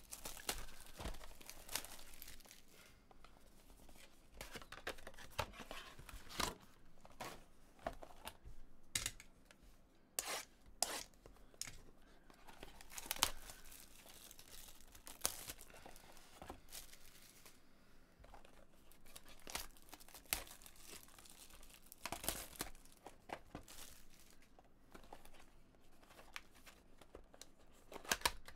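Packaging of a 2017 Bowman Chrome baseball card hobby box being torn open and crinkled: scattered sharp rips amid a steady soft rustle of wrappers.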